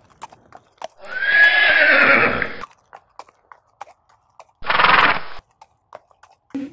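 Horse whinny sound effect: a long neigh falling in pitch about a second in, then a shorter second call near five seconds, with scattered light clicks between.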